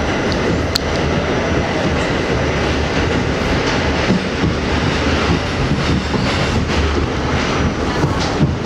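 Inside an R68 subway car running through the tunnel: the steady, loud rumble and rattle of the wheels on the rails, with a sharp click about a second in.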